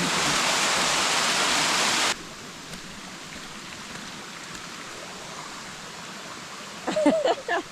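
Rushing water of a mountain stream, a loud steady rush that cuts off abruptly about two seconds in, leaving a much fainter rush. A brief voice comes in near the end.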